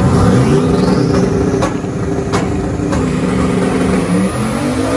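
Turbocharged engine of a 1963 Chevy pickup revving up and held at high revs as the burnout begins, with three sharp pops spaced well under a second apart. The engine note shifts near the end as the rear tyre starts to smoke.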